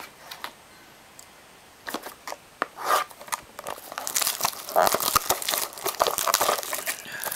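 Plastic wrapping on a trading card box being torn and crinkled. Irregular crackling and rustling that starts about two seconds in and grows busier from about three seconds on, after a quiet start with a few light clicks.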